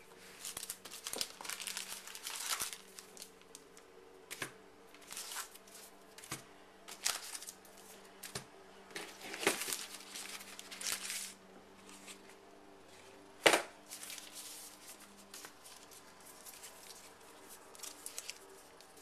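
Crinkling and tearing of a trading-card pack wrapper being handled and opened, in irregular rustles with one sharp click past the middle, over a faint steady hum.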